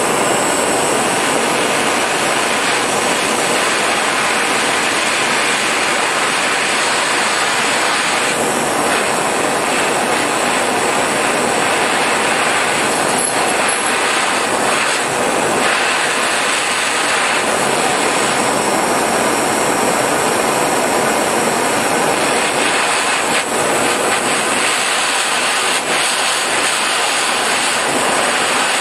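Handheld blowtorch flame running with a loud, steady hiss. It is held on a catalytic lamp's ceramic stone, burning off clogged residue until the stone glows red hot.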